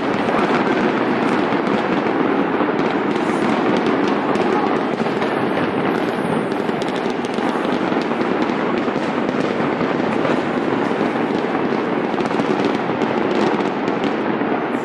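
Fireworks display: a dense, continuous run of rapid crackling and popping bursts.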